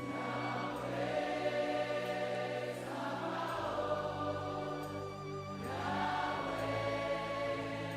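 Congregation singing softly together over a worship band's held keyboard chords, the bass chord changing twice.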